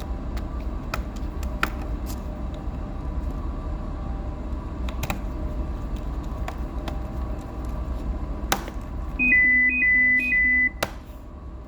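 Faint scattered clicks over a steady low hum, then about nine seconds in a loud electronic beeping tune of alternating high notes that stops after about a second and a half.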